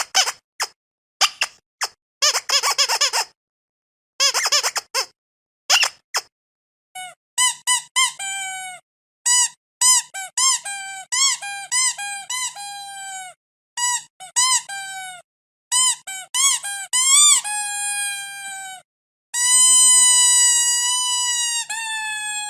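Squeaky rubber dog toy squeezed over and over: a run of short, airy squeaks, then clearer high squeaks that drop in pitch as the toy is released, and finally one long drawn-out squeak lasting about three seconds.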